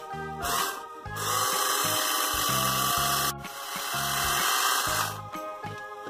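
Battery-powered toy blender running with a whirring buzz: a short burst, then about four seconds of steady running with a brief break in the middle, over background music.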